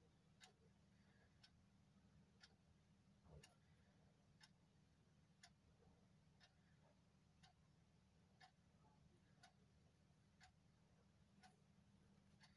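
Near silence: a clock ticking faintly about once a second over a low steady hum, with one soft knock about three seconds in.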